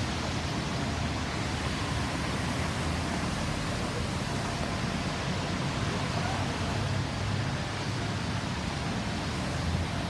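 Steady road traffic noise: a continuous hum and rush of vehicles with no siren sounding.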